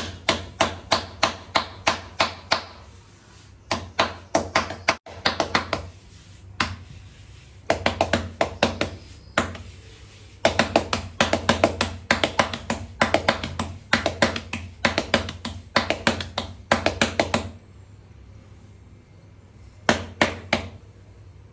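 Palms slapping and patting a ball of rotti dough flat on a counter. It comes in quick runs of about four to five pats a second, with short pauses between runs and a last brief run near the end.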